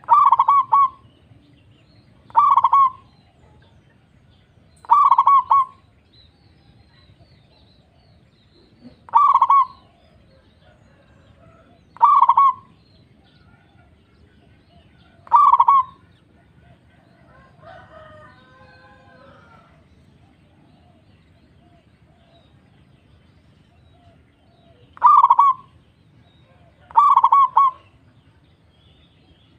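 Zebra dove (perkutut) singing its cooing song: eight short coo phrases a few seconds apart, with a long gap after the sixth.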